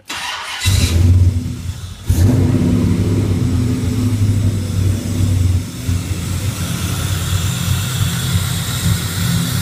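Supercharged LT1-based 383 small-block V8 cranked on its starter, catching within the first second and revving loudly. It dips briefly about two seconds in, then runs on steadily as a low-compression blower engine that is still being tuned to idle.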